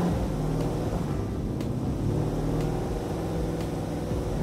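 Electric motor and gears of a radio-controlled toy truck running steadily as it hauls an RC excavator on its trailer.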